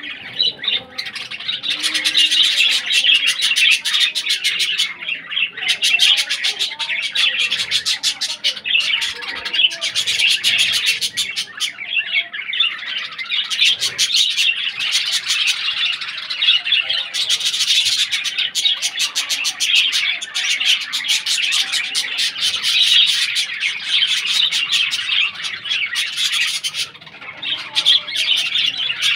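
A flock of Australian parrots (budgerigars) chattering and chirping continuously, many birds at once, with occasional squawks.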